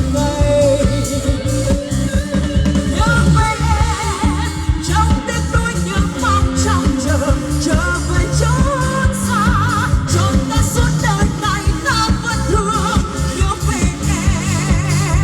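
Pop song sung with vibrato over a band backing of bass, drums and guitar, played loud through a PA sound system.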